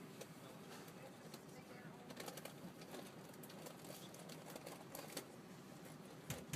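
Quiet bus cabin: a faint murmur of voices with scattered light clicks and taps.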